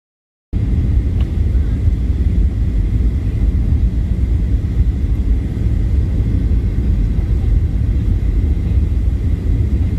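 Steady low rumble of an airliner's engines heard inside the cabin, starting abruptly about half a second in.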